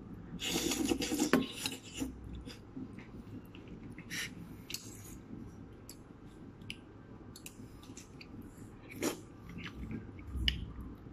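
Spoons and forks clicking and scraping against plates and bowls during a meal, with a burst of rustling or scraping near the start and scattered light clinks after it.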